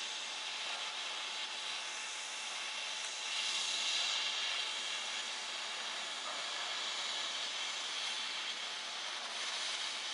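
Steady hissing background noise of a working shipyard, a little louder about three seconds in.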